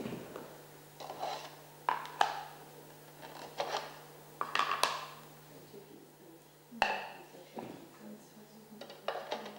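Hard plastic parts of a Trixie Gambling Tower dog puzzle toy being handled: a series of short clicks, knocks and light clatters as the coloured trays are pulled from and fitted to the clear plastic tube and the lid is set down, over a steady low hum.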